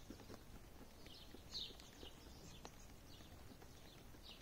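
Faint scattered clicks and a few short, high chirps from chickens.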